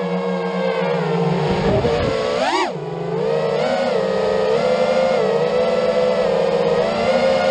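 FPV racing quadcopter's brushless motors whining as heard from its onboard camera, the pitch swinging up and down with the throttle, with a sharp rising-and-falling blip about two and a half seconds in.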